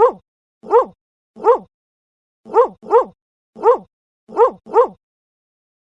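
A dog barking: eight short barks, some single and some in quick pairs, stopping about five seconds in.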